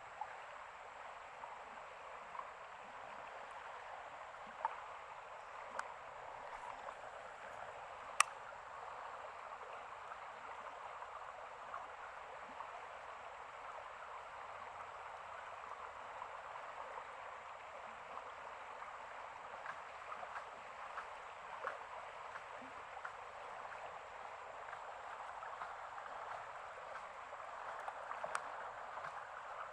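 Running water, a steady rushing trickle, with a few sharp clicks over it.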